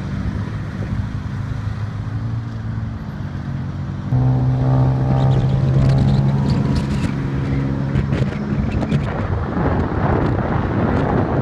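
Small motor-vehicle engine running while riding through traffic, with a steady hum; about four seconds in it changes abruptly to a louder, clearer engine drone, which turns into a rougher rushing noise near the end.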